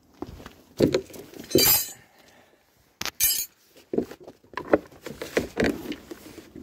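Sharp clinks and knocks of hard objects handled against each other. Two loud strikes come in the first two seconds, the second with a bright ring, then another bright clink, then a run of lighter knocks.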